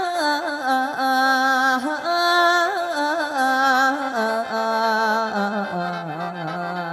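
A mor lam singer's long melismatic 'o la no' vocalise: one voice drawing out held notes with wavering ornaments, stepping gradually lower in pitch toward the end.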